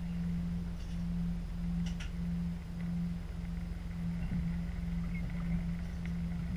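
A diesel multiple unit's engine idling while the train stands at a platform, heard from the driver's cab as a steady low hum with a slight pulse and a few faint clicks.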